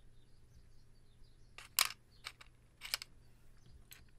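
Wooden matchsticks handled in an open cardboard matchbox and set down on a desk mat: a few light, sharp clicks and taps, the loudest about two seconds in.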